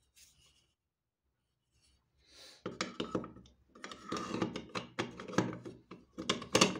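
Steel blade of an Aux Mines de Suède cast-iron hand plane being fitted back onto the plane body: scraping and clicking of metal on metal, starting about two and a half seconds in, with a sharper knock near the end.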